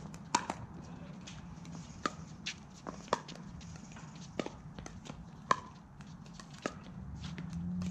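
Pickleball paddles striking a hard plastic ball in a rally: sharp pocks, the loudest about once a second, with fainter ones in between.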